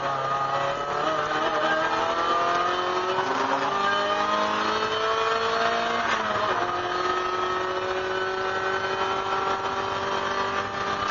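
A 1999 Mazda MX-5 Miata race car's 1.8-litre four-cylinder engine is heard from inside the stripped cabin, pulling hard with its pitch rising steadily. About six seconds in the pitch drops sharply at an upshift, then climbs slowly again under full throttle.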